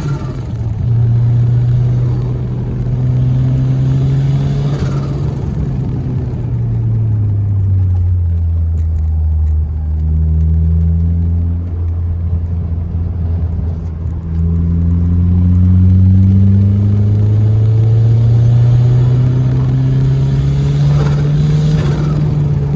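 Ford Sierra Sapphire RS Cosworth's turbocharged 2.0-litre four-cylinder engine running under changing load: the revs fall slowly to a low drone, hold, then climb steadily again over several seconds. Short hissy bursts come near the start, about five seconds in, and near the end, the turbo's flutter as the throttle is lifted.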